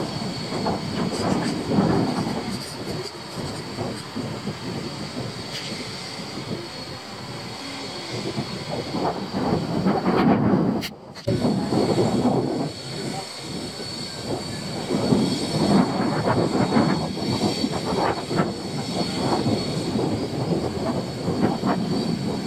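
Wind buffeting the microphone: a rough, gusting rumble that swells and falls unevenly and cuts out briefly near the middle.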